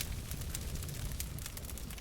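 Wood fire crackling in a fireplace: many small snaps and pops scattered over a low, steady rumble of burning.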